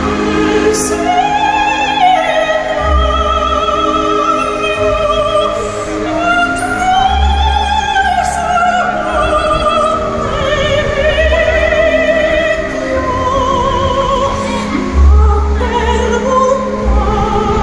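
Operatic song: a singer holding long notes with wide vibrato over orchestral accompaniment, with deep bass notes coming in every few seconds.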